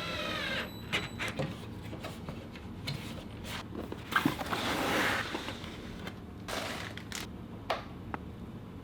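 Scattered clicks and rustling of computer parts and cables being handled during a PC build, with a brief squeak at the very start and a longer rustle about halfway through.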